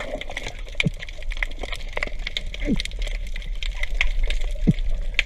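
Underwater sound heard by an underwater camera: dense irregular crackling clicks over a steady low rumble, with two short falling tones about midway and near the end.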